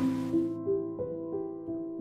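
Soft background music: a slow keyboard melody over held notes, with a new note starting about three times a second.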